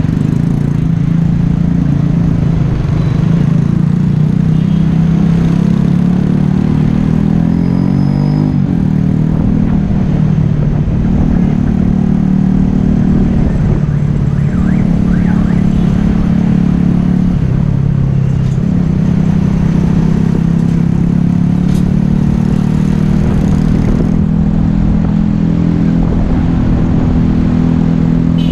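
A Yamaha Taurus motorcycle's small single-cylinder four-stroke engine running while riding, its note stepping up and down several times as the speed changes, over a steady low rumble.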